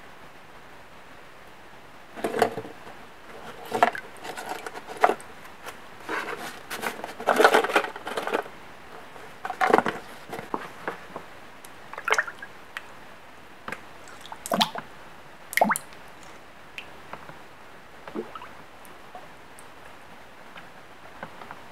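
Handling noises at a plastic bucket of acid: irregular knocks and clatters with splashy liquid sounds, busy for several seconds and then only occasional, as a two-stroke cylinder is lowered into the bath to strip its Nikasil plating.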